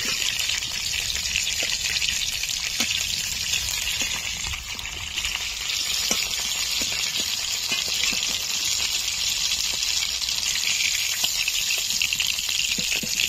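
Hot oil sizzling steadily in a metal kadai as fried phasa fish pieces are lifted out with a spatula, with a few faint clicks of the spatula against the pan.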